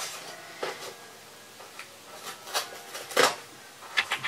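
Scissors cutting the packing tape on a cardboard box: a few scattered snips and scrapes, the loudest a longer scrape about three seconds in.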